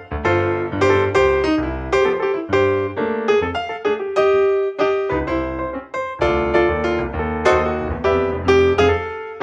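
Background piano music: a lively run of struck notes, several each second, each ringing and fading.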